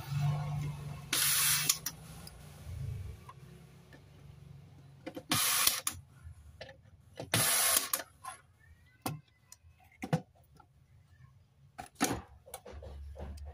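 Workbench handling noise while repairing a TV: three short bursts of hiss, each about half a second, then a few sharp clicks and knocks.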